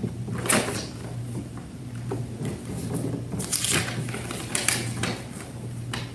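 Handling noises: several short rustles and knocks, irregularly spaced, over a steady low hum.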